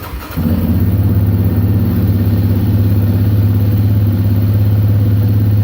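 2018 Yamaha Raptor 700R's single-cylinder four-stroke engine firing up and settling within the first half second into a steady idle.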